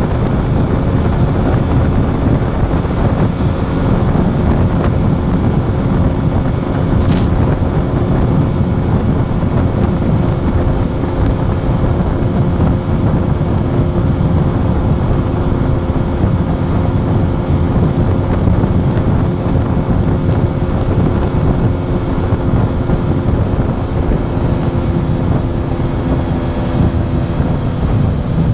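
Wind buffeting the microphone at highway speed over the steady drone of an Aprilia RS4 125's single-cylinder four-stroke engine held at constant revs while cruising. A single short click about seven seconds in.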